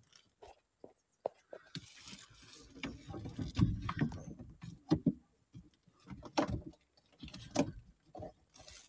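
Hands working among a wiring harness and its corrugated plastic conduit: irregular rustling and scraping with scattered clicks, and a few louder knocks in the middle.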